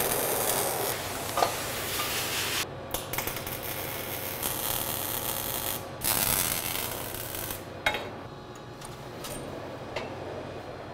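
MIG welder tack-welding steel: the arc runs in three tacks of two to three seconds each with short breaks between, and stops about eight seconds in.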